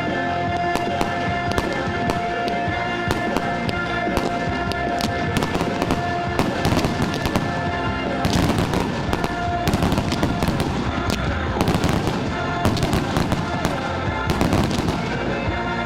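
Fireworks display: rapid crackling and popping, with many sharp cracks close together that grow denser about halfway through. Music with held notes plays underneath.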